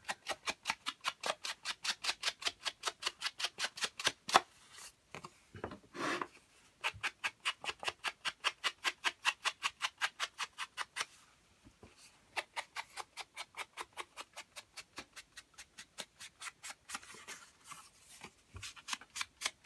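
A foam sponge loaded with ink being rubbed in quick short strokes against the edges of a cardstock panel, a scratchy brushing about four or five times a second, pausing briefly twice.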